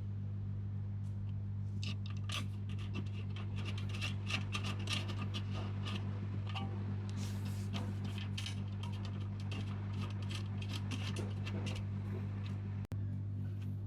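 A steady low hum under a run of small clicks, taps and scratching, busiest from about two seconds in until near the end.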